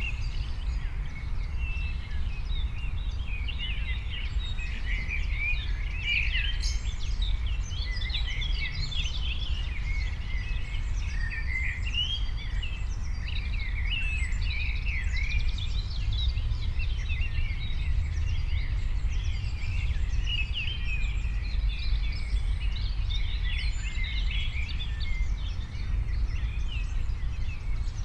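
Many birds chirping and calling at once, short quick notes overlapping throughout, over a steady low rumble.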